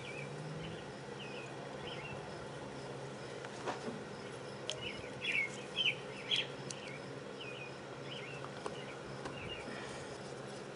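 Small birds chirping in short, repeated calls, busiest around the middle, over a faint steady hum, with a few light clicks.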